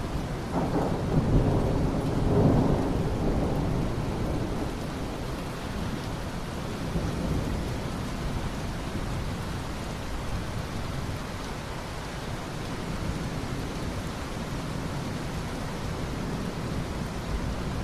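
Steady rain with a roll of thunder rumbling in about half a second in and dying away by about four seconds, leaving the rain alone.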